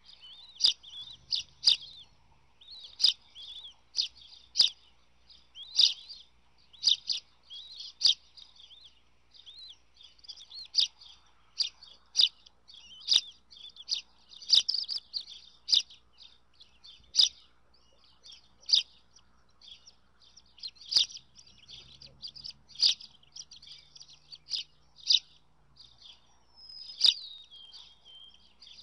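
Bald eagle chicks peeping, a high, nearly unbroken chirping as they beg at a feeding. Sharp clicks, the loudest sounds, come about once or twice a second.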